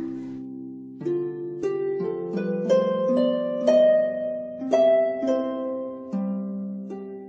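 Gentle instrumental background music: a slow melody of plucked-string notes, each starting sharply and fading, overlapping one another.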